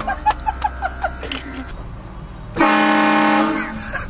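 Truck-mounted air train horn, a set of four horns, sounding one loud blast of about a second: a chord of several steady tones, beginning a little past halfway. Before it come a few short squeaky sounds.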